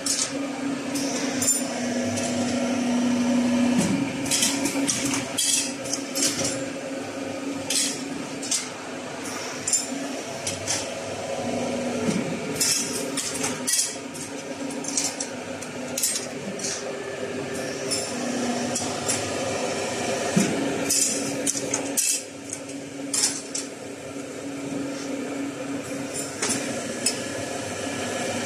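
Thread-cutting machine running: a steady motor hum that briefly drops and returns about every eight seconds, with frequent metallic clinks and clanks throughout.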